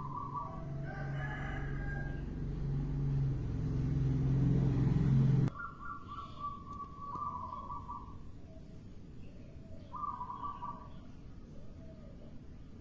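Zebra dove (perkutut) cooing in short phrases of quick notes. Under the first half runs a loud steady low hum that cuts off suddenly about five and a half seconds in.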